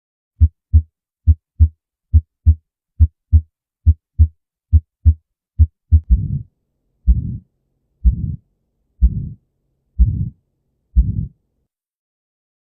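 Heart sounds through a stethoscope: about six seconds of crisp paired lub-dub beats, then each beat drawn out into a longer, rough whooshing sound about once a second, the sound of a heart murmur. The beats stop over a second before the end.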